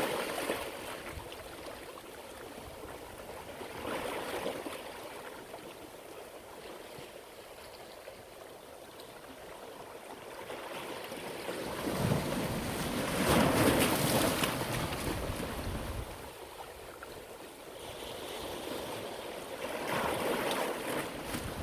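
Sea waves washing onto the shore in repeated swells. The biggest comes in about twelve seconds in and surges for a few seconds before falling back.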